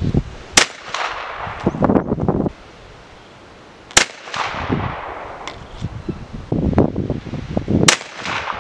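Three rifle shots from a CZ 550 in .375 H&H firing light cast-lead bullet loads over Green Dot powder, roughly three and a half seconds apart. Gusts of wind buffet the microphone between the shots.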